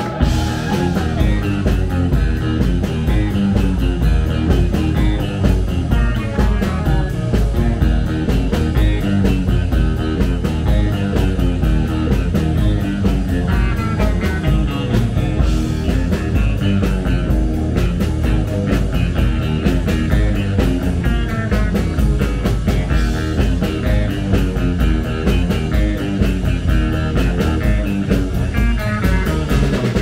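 Live rock band playing with guitar over a drum kit, keeping a steady beat with evenly repeating cymbal strokes.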